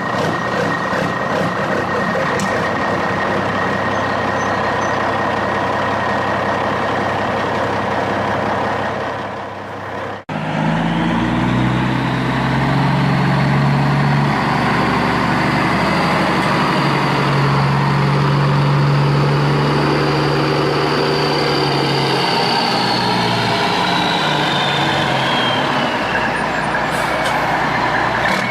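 Big truck's engine running steadily, then after a sudden break about ten seconds in, a louder, heavier stretch of engine with a high whine that falls in pitch near the end.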